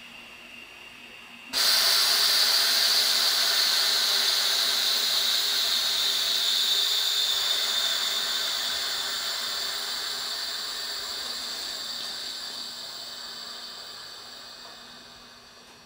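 Sudden loud hiss of compressed air venting from an SR1 series electric train, starting about a second and a half in and slowly dying away.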